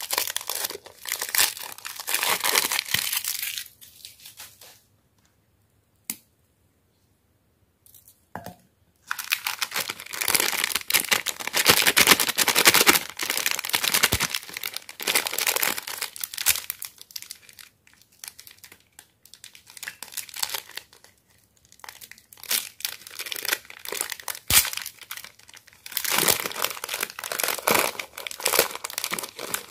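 Foil-lined plastic snack wrappers crinkling and tearing as they are opened by hand. The sound comes in loud bursts, with a silent gap of a few seconds about five seconds in.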